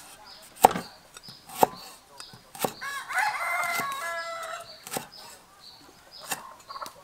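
A steel cleaver chopping through lemongrass stalks onto a wooden chopping block, sharp strokes about once a second. A rooster crows once in the middle, for about a second and a half.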